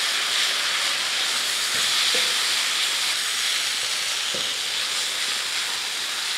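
Shredded chicken filling sizzling steadily in a hot non-stick wok, with a few faint scrapes of a wooden spatula stirring it.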